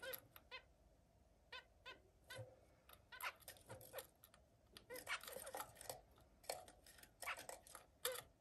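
Zebra finches calling in a cage: short, high calls, some single and some in quick runs, the busiest stretch about five to six seconds in.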